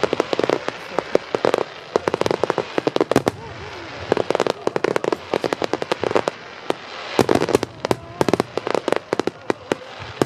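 Starmine fireworks barrage: rapid, overlapping bangs and cracks of shells launching and bursting, several a second throughout.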